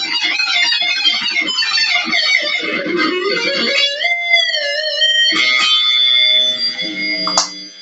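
Electric guitar solo: quick runs of short notes, then a held note bent with vibrato about four seconds in, followed by a few more notes and a brief sharp scrape near the end.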